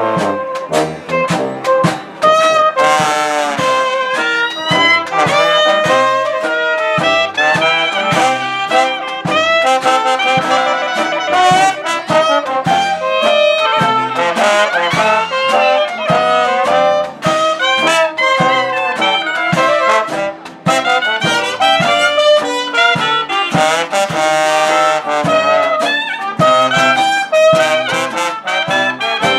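Traditional New Orleans jazz band playing an instrumental chorus live, with clarinet, cornet and trombone weaving lines together over a steady beat from the rhythm section.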